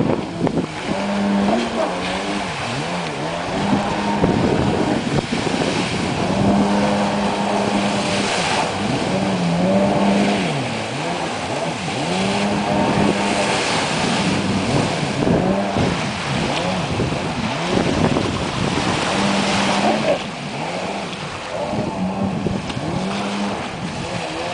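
Stand-up jet ski's engine revving up and down over and over, its pitch rising and falling in waves, along with the rush of water spray as it carves tight turns.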